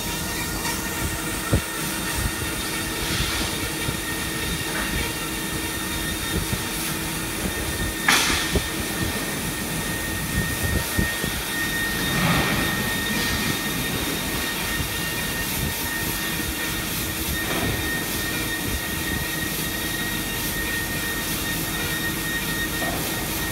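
A CNC cutting machine running, a steady mechanical noise with a faint steady hum and whine over it. A few sharp knocks stand out, the loudest about eight seconds in.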